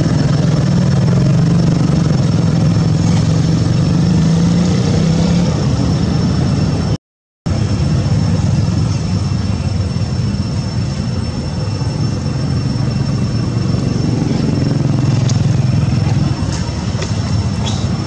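Steady engine drone with a low hum, broken by a sudden half-second gap of silence a little before halfway through.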